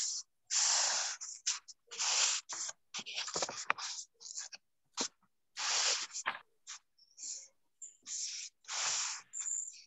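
Short scratchy rubbing noises close to the microphone in irregular bursts, about one a second, with dead silence between them.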